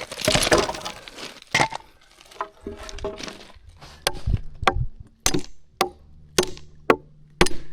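Hammer driving a nail into framing lumber: seven sharp, evenly paced blows about half a second apart in the second half, after some scraping and a single knock of wood being handled.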